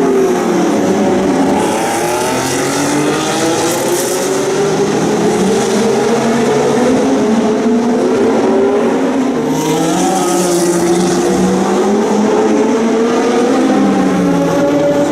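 Several historic 1966–1972 Formula 1 cars racing, their engines running at high revs with overlapping pitches rising and falling as they rev, shift and pass. There are two stretches of loud hiss, about two seconds in and again about ten seconds in.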